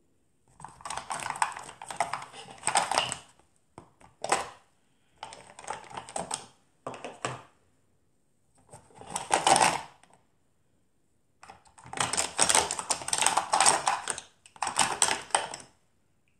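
Rummaging through a collection of lipsticks and make-up: small plastic cases clattering and clicking against each other in about seven bursts of up to a few seconds, with short pauses between.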